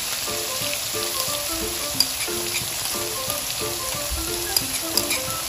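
Spice paste of ground shallot, garlic and ginger sizzling steadily as it fries in hot oil in a wok. A spoon scraping the paste off a plate gives a few sharp clicks, about two seconds in and twice near the end.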